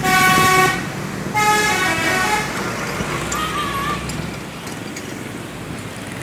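A telolet musical horn on a cement mixer truck plays two melodic blasts, the second stepping through several notes, over the steady low running of the truck's engine. A fainter wavering tone follows a couple of seconds later.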